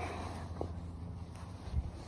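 Footsteps on grass and phone handling noise over a steady low hum, with a faint click about half a second in and a soft thump near the end.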